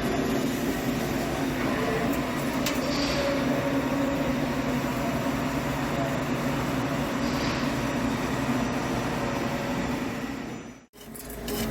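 Heavy CNC lathe turning a forged steel spur pinion shaft, a steady machining drone with a low hum. It cuts off abruptly near the end.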